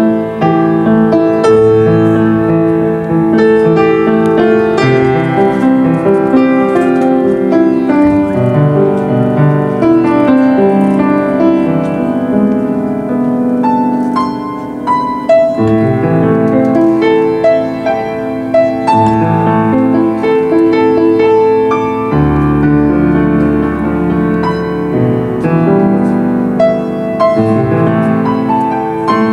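Grand piano played solo: a continuous piece of sustained chords with a melody above them.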